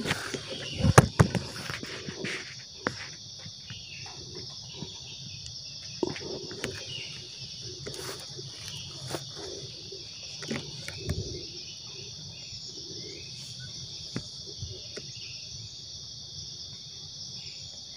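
A steady, high-pitched chorus of forest insects. A few sharp knocks and rustles of handling break in, the loudest about a second in, with smaller clicks scattered after.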